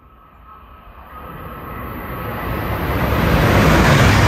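Shinkansen bullet train approaching a station at high speed without stopping: a rushing noise that grows steadily louder over a few seconds.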